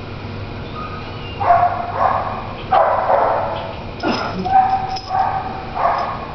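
A dog barking and yipping repeatedly, in a string of short barks spaced roughly half a second to a second apart.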